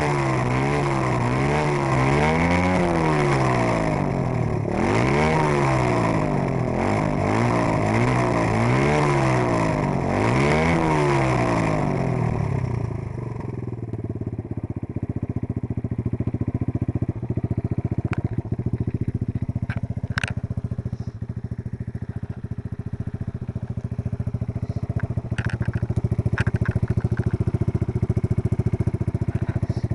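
AJP motorcycle engine revved up and down about five times, each rev rising and falling back, then dropping to a steady idle at about twelve seconds. A few sharp clicks come during the idle.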